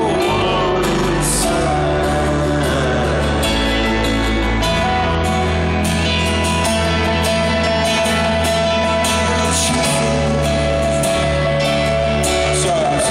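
Live rock band playing in an arena, recorded from the audience: sustained bass notes and keyboard under a male lead vocal that sings near the start and again near the end.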